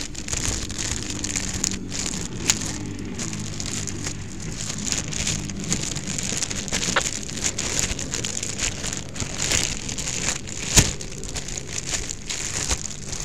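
Chicken legs frying in a hot cast iron skillet, a steady crackling sizzle, while a plastic bag of floured chicken crinkles and rustles in the cook's hands. A single sharp tap stands out about three-quarters of the way through.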